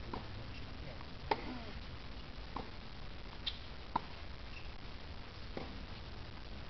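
Tennis rally: about four sharp pops of racket strings hitting the ball, a little more than a second apart as the players trade shots.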